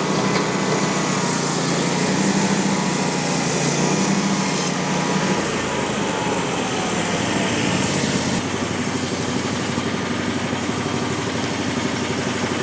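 Frontier OS35 hydraulic band sawmill running, its engine and band blade cutting through a tulip poplar log. The low running hum drops off about halfway through, and the sound changes again a few seconds later.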